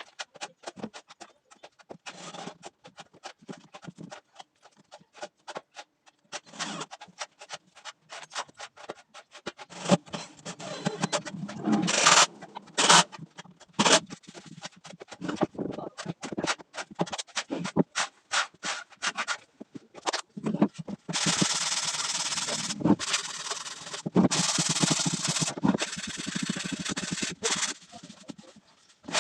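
Scraping and rubbing with many irregular knocks and clicks, turning into long stretches of dense rasping in the second half.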